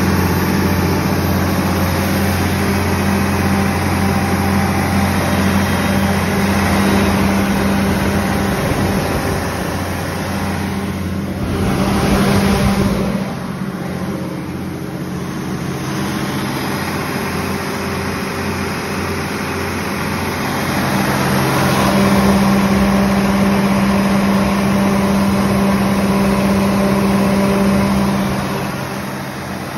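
Cummins 6CT8.3-G2 six-cylinder diesel engine of a 125 kW generator set running steadily at a constant 1800 rpm, a low even hum. The hum fades a little about halfway through and comes back louder a few seconds before the end.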